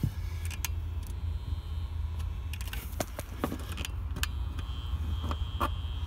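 Scattered light clicks and small rattles of hands handling wiring and tools, over a steady low rumble.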